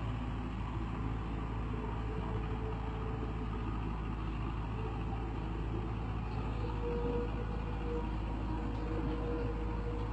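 Heavy excavator's diesel engine running steadily, with a faint steady whine above the low drone.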